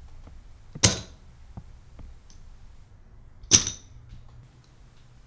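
Two sharp clacks of poker chips being pushed into the pot on a table, each with a brief bright ring: one about a second in and another about two and a half seconds later.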